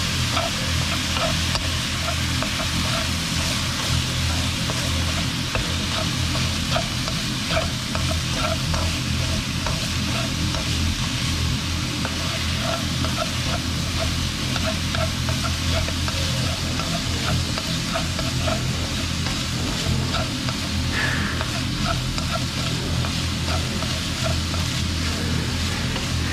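Minced pork, onion and shiitake sizzling in a nonstick wok with a steady hiss, stirred with wooden chopsticks that make repeated light clicks and scrapes against the pan. A steady low hum runs underneath.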